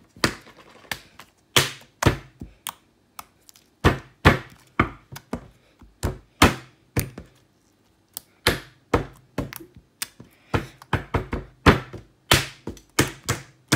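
Repeated sharp knocks and thumps, irregular, some single and some in quick runs with short pauses between. It is deliberate banging, made as background noise to drown out slime being poked.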